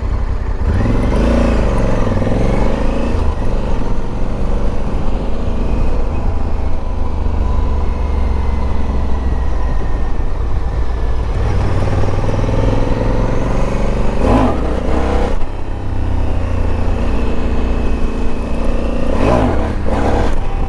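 Honda CRF dual-sport motorcycle engine under way, revving up and easing off several times, with the pitch climbing again about two-thirds of the way through and near the end. Heavy wind rush on the microphone runs underneath.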